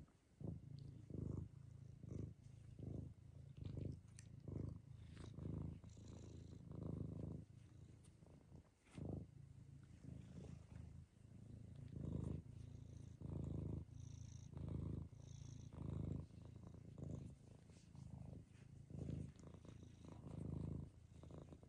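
Long-haired domestic cat purring close up, a low rumble that swells and fades in a steady rhythm about once or twice a second with each breath.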